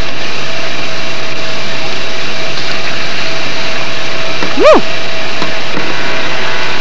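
Steady loud hiss-like noise of an old camcorder soundtrack, with one brief high call that rises and falls in pitch about two-thirds of the way through.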